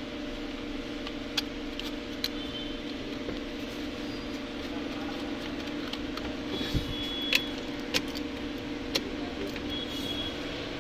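Scattered plastic clicks and small rattles as the Hyundai Getz's under-dash fuse and relay box is handled, a few sharp clicks a second or so apart, over a steady low hum.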